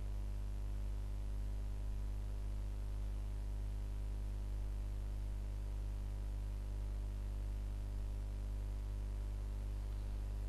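Steady low hum with a faint hiss above it.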